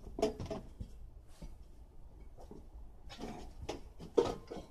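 A few irregular sharp knocks and scrapes with quiet gaps between, the loudest hit near the end.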